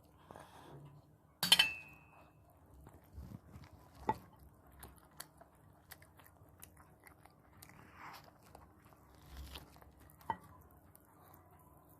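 Close-up eating sounds: chewing and soft mouth noises. About a second and a half in, a loud clink of a dish or utensil rings briefly, with lighter clinks and clicks later.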